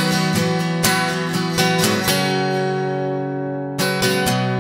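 Background music of strummed guitar chords; midway one chord is left ringing and fading for about a second and a half before the strumming starts again near the end.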